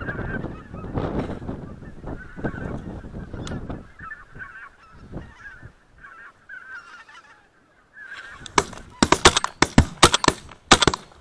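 A flock of white-fronted geese honking repeatedly as it flies in, then a rapid volley of shotgun shots from several guns near the end.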